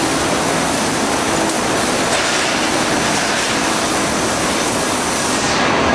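PE protective film coating machine running: a loud, steady mechanical din of rollers and drives with a continuous hiss. The hiss in the upper range falls away just before the end.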